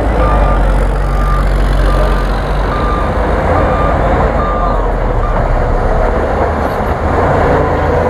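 Diesel dump truck running with a steady low rumble while it tips its load of soil. A reversing alarm beeps a little faster than once a second and stops about five seconds in.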